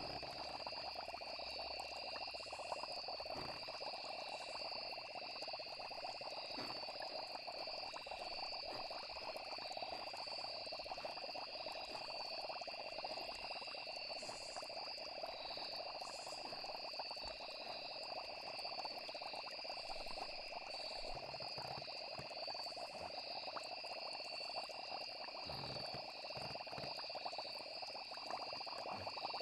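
Night chorus of frogs and crickets: the crickets trill steadily at a high pitch over a dense, continuous chorus of frogs.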